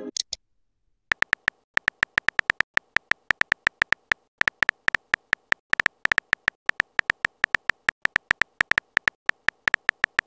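Simulated phone-keyboard typing clicks: a rapid, even run of short clicks starting about a second in and going on to the end, at about six a second. A message chime fades out at the very start.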